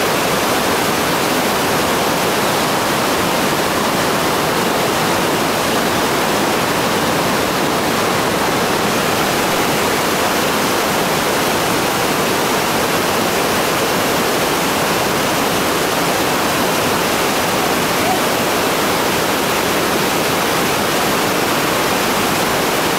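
Whitewater rapid rushing, a steady, unbroken noise of churning river water.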